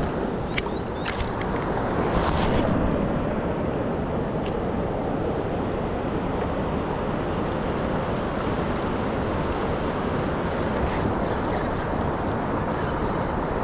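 Steady rushing noise of river water and wind on the microphone, with a few short high chirps in the first second.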